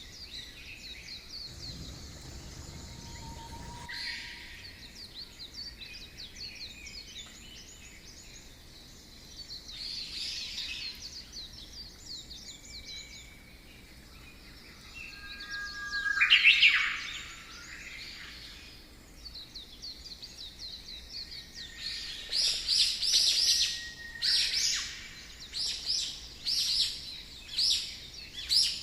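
Rainforest birds calling and chirping, with many quick high notes throughout. One loud call comes a little past halfway, and a run of loud repeated chirps fills the last several seconds.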